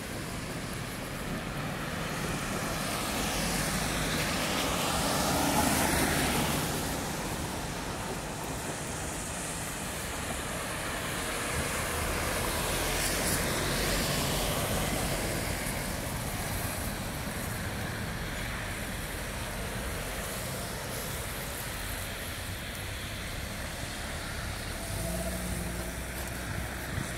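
Rain falling on a city street with traffic going by; twice a vehicle passes on the wet road, its noise swelling and fading, about a quarter and about half way through.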